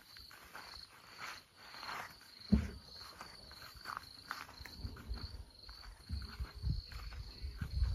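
Footsteps and leaves brushing as someone walks through garden plants, with one sharp thump about two and a half seconds in. Behind it an insect chirps high and steady in regular pulses.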